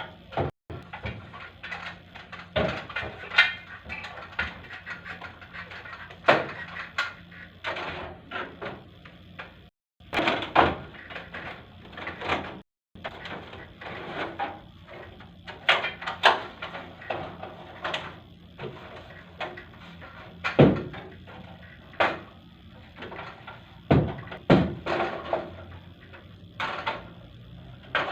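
Irregular knocks, clunks and rattles, one every second or two, over a faint steady low hum.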